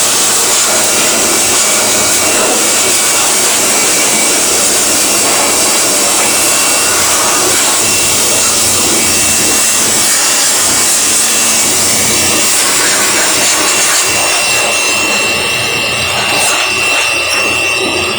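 Electric air blower running steadily, blowing dust out of a refrigerator's clogged condenser coil. About 15 s in the sound turns rougher, with a thin high whistle.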